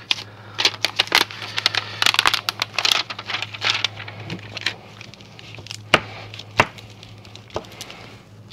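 Clear plastic transfer sheet crinkling and crackling under gloved hands as it is laid down and smoothed flat, dense crackles in the first half, then sparser, with two sharp clicks a little past the middle.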